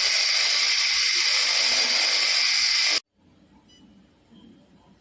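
Handheld fiber laser cleaning gun firing on metal: a loud, steady hiss that cuts off suddenly about three seconds in.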